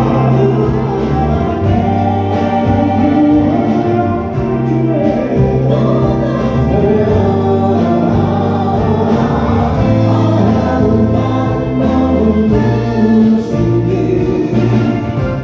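Live band playing a retro cover song: male and female singers in harmony over bass guitar and drums, recorded on a phone.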